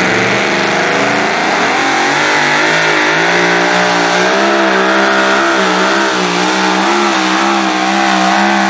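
Super modified 2WD pulling truck's supercharged engine at full throttle, pulling the sled. Its note climbs over the first couple of seconds, then holds high with a wavering pitch.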